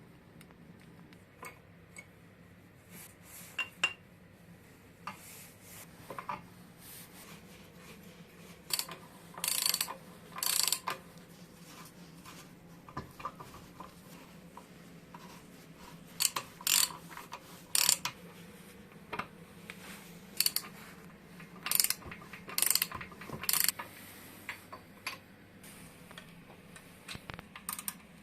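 Metal parts and hand tools clinking and clattering at irregular intervals, with several short scraping strokes.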